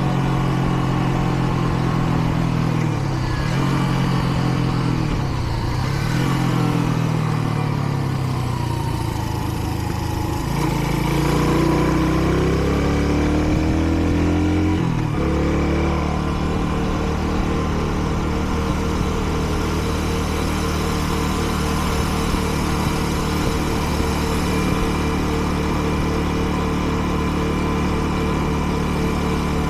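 Kreidler Dice CR 125's single-cylinder four-stroke engine running, its pitch dipping and rising over the first half, then dropping suddenly about halfway to a steady idle.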